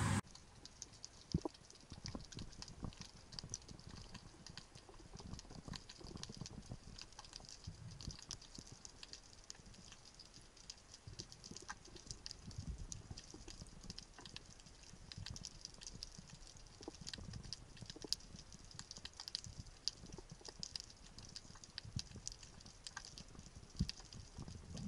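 Underwater sound picked up by a diving camera: a faint, continuous crackle of small clicks, with scattered low, muffled knocks.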